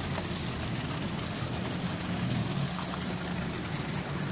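Steady rush of water running through a water filter's pipes and out of its drain during backwashing, with a low steady hum underneath.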